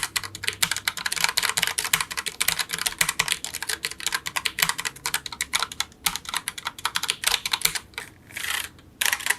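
Logitech POP Keys mechanical keyboard being typed on quickly, a steady stream of clicky keystrokes that thins out after about six seconds.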